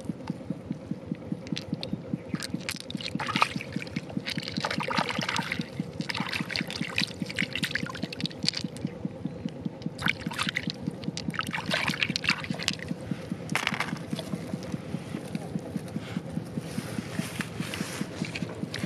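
Shallow water sloshing and splashing in short bursts as hands scoop through it, over a steady, fast throbbing that runs underneath throughout.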